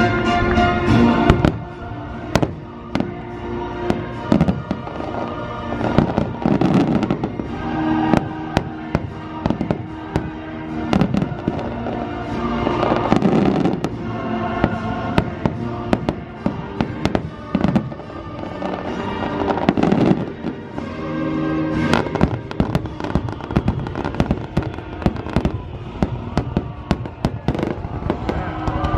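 Fireworks bursting in quick succession, sharp bangs and crackling, over orchestral show music played through loudspeakers.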